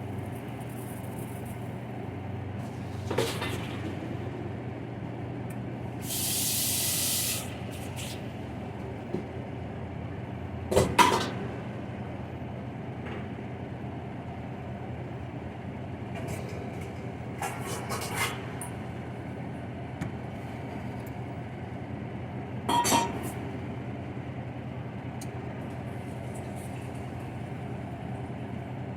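Kitchen work over a steady low hum: a few scattered clatters and knocks, and a spray-like hiss about six seconds in that lasts a second and a half.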